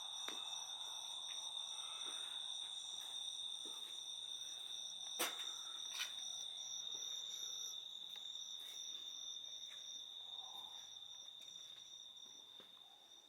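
Night insects, crickets or katydids, chirring in a steady high-pitched chorus. Two sharp knocks about five and six seconds in.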